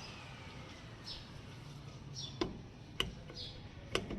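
Three sharp clicks of hand tools against metal parts on the motorcycle, spaced about half a second to a second apart, with faint high chirps in the background.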